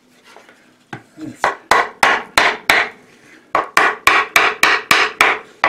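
Yellow-headed mallet tapping on a wooden board laid over a can's lid, driving the lid down to seal it: a run of sharp knocks, a short pause, then a quicker run at about four taps a second.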